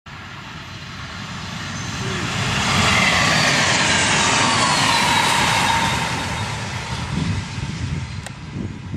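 Renfe Alaris electric tilting train (Fiat ETR 490) passing at speed. A rushing sound builds over the first three seconds, holds, then fades, with a whine that drops in pitch as the train goes by.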